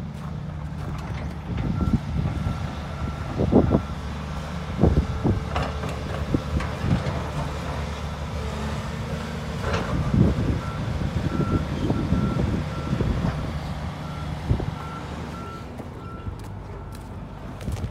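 Diesel engines of large Volvo excavators running steadily while they sort broken concrete, with several knocks and clunks of concrete chunks being dropped and shifted. A reversing alarm beeps in a short spell about two seconds in and a longer one through the second half.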